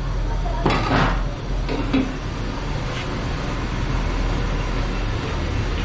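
Street ambience: a steady low traffic rumble, with a few brief clattering noises in the first three seconds.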